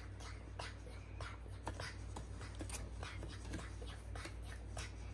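Faint irregular taps, clicks and rustles of cardboard shadow puppets being handled and moved against the backlit screen as a puppet house is set in place, over a low steady hum.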